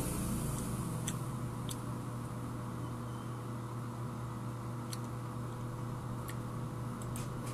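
Steady low hum of room background noise, with a handful of faint, short clicks scattered through it.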